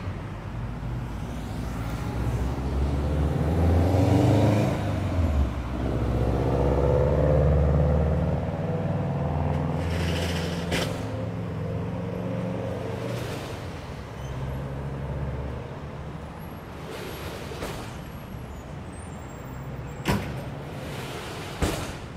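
A car passing close by: its engine note drops as it goes past, then climbs as it accelerates away. Two sharp knocks come near the end.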